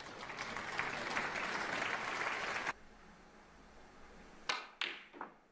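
Audience applauding, cutting off suddenly about halfway through. After a lull, a few sharp clicks of snooker balls being struck come near the end.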